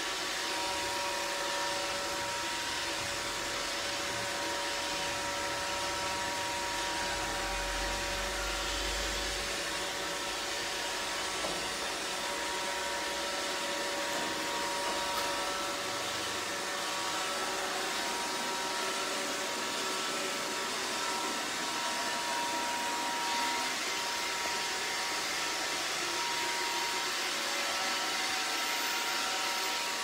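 iRobot Roomba robot vacuum running as it cleans, with a steady whirring hiss from its vacuum motor and brushes and a few constant whining tones over it.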